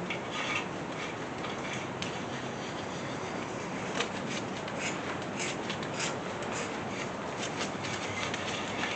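Small metallic clicks and scraping of a thread chaser being turned into the head bolt holes of a small block Chevy 350 block, cleaning crud from the threads, over a steady background hiss.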